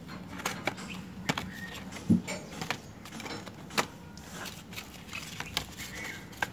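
Plastic-capped watercolour paint tubes and their cardboard box being handled: scattered light clicks and taps, the loudest about two seconds in and again just before four seconds.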